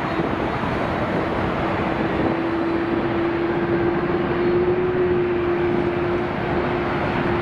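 Boeing 787-9 airliner's Rolls-Royce Trent 1000 jet engines during the landing rollout after touchdown: a steady rushing noise with one steady droning tone, a little louder partway through.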